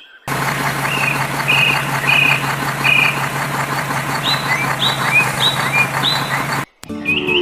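A vehicle motor running steadily with a low hum, while birds chirp in short repeated calls over it; it starts and stops abruptly.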